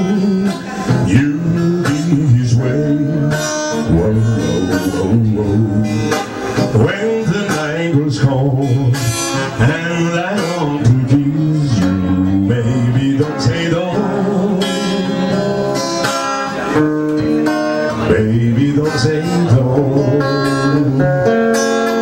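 Acoustic guitar played live, strumming chords in a rock and roll song.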